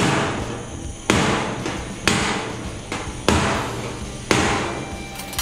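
Hammer blows on the welded sheet-metal patch panel of a Ford Model A's cowl: five strikes about a second apart, each ringing out briefly. The hammering flattens the weld line, which sits a little high.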